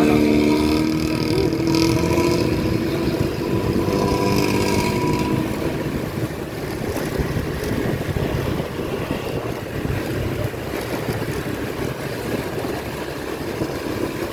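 Diesel engine of a front-engined Hino AK8 bus running with its raspy 'ngorok' exhaust, a steady droning note that is louder for the first five seconds or so and somewhat quieter after that.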